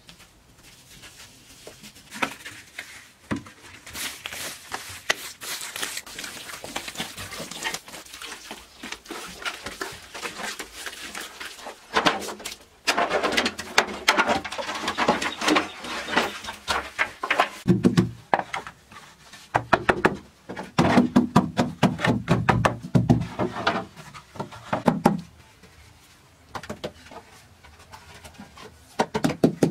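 Green bamboo poles knocking and clattering as they are handled and laid side by side on a hard earthen floor: many sharp knocks and scrapes, coming thick and fast after about twelve seconds, with a run of heavier thuds later on.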